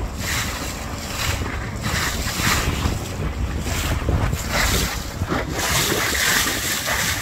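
Gusty wind buffeting the microphone over a steady low rumble from the barge's engine as it turns around on the water.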